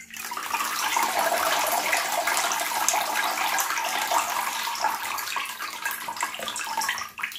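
Water pouring and splashing back into a plastic basin as a perforated plastic basket of soaked mung bean sprouts is lifted out to drain after their soak. The stream eases slightly near the end and stops abruptly.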